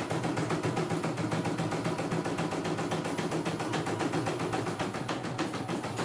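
CNY E900 computerized embroidery machine running and stitching: a steady motor hum under a fast, even train of clicks from the needle mechanism.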